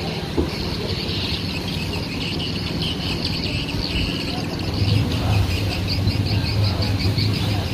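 Many small birds chirping rapidly and continuously, over a low steady engine hum that grows louder about two thirds of the way through.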